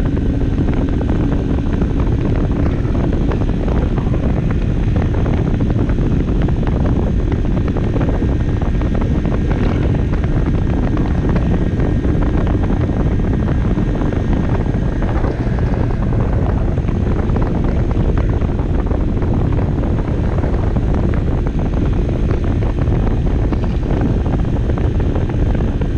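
Barton Volcano 50cc moped's engine running at a steady cruising speed, mixed with heavy wind noise on the camera microphone.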